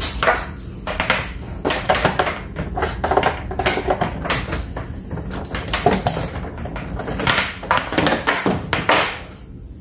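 Irregular plastic knocks, clicks and rustling as a power cord is fitted into the back of an Epson ET-15000 printer and the printer's casing is handled. The clatter stops about half a second before the end.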